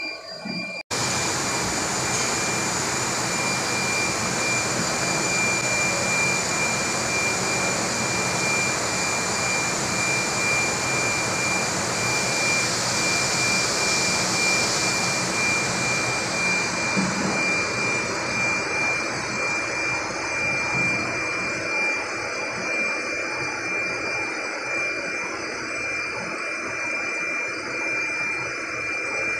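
Steady machinery noise: a loud, even rushing hiss with a constant high whine through it. It starts abruptly about a second in, and its upper hiss eases a little past the middle.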